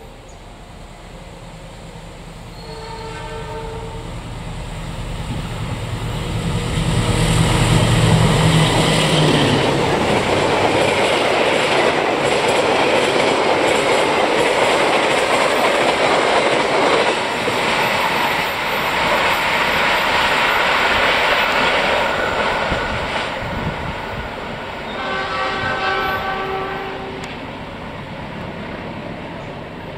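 A KAI diesel-electric locomotive hauling a stainless-steel passenger express passes at speed. Its horn gives a short blast about three seconds in, the engine's deep rumble builds and peaks as the locomotive goes by, and then the coaches' wheels clatter past on the rails for a long stretch. A second horn blast sounds near the end as the noise fades.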